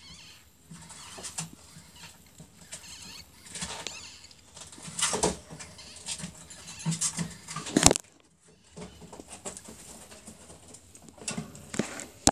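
Faint high squeaks of newborn ferret kits, over rustling of hay and fur right against the microphone, with louder rustling bursts about five seconds in and again around seven to eight seconds.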